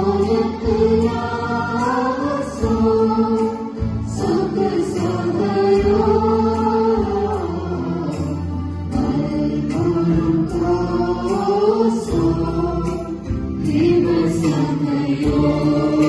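A choir singing a Christian devotional song over steady instrumental backing.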